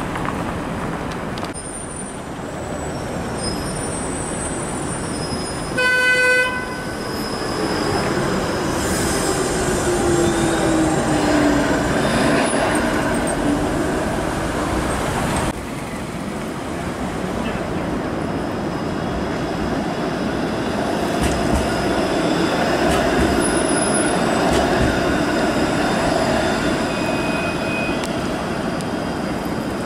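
Streetcars running past on their rails in city traffic: first a CLRV streetcar, with a falling whine as it goes by, and a short horn toot about six seconds in; then a Flexity Outlook low-floor streetcar rolling past.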